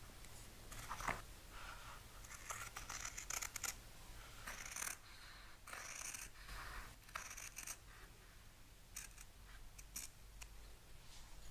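Scissors cutting through fabric, trimming the excess close along the edge of a lampshade liner panel in faint, irregular snips and scrapes.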